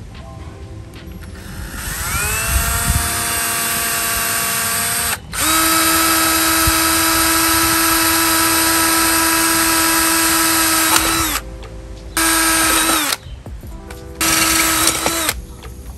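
Small electric power tool's motor running in trigger pulls. It spins up with a rising whine about two seconds in, runs steadily with a brief break, stops near eleven seconds and spins down, then runs in two short bursts near the end.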